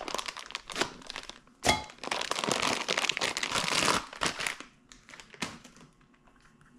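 Packaging crinkling and rustling as a new small intake hose is unwrapped, with one sharp snap about two seconds in; it thins out to a few faint clicks after about four seconds.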